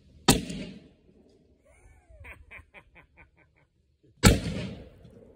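Two sharp bangs from small black-powder mini cannons firing, about four seconds apart, each trailing off over half a second. A quick, quieter run of short chattering sounds comes between them.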